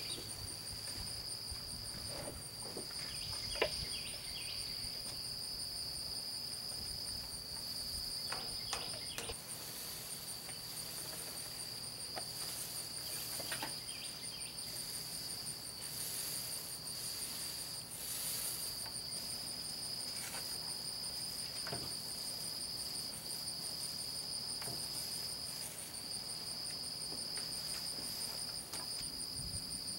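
Insects trilling steadily: one continuous high trill with short breaks, and a finer, rapidly pulsing buzz above it. A few faint taps and soft brushing sounds come through underneath.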